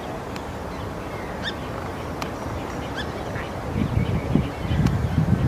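Great crested grebe chick giving a few short, high begging peeps while being fed. From about four seconds in, a louder low-pitched noise builds up.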